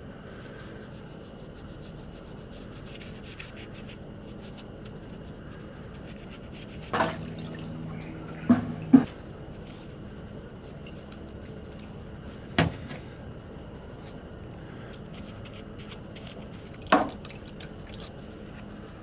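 Five or so sharp knocks and clinks, two close together about nine seconds in, over a steady low hum: items handled on a workbench while cold bluing and rust remover is applied to a revolver.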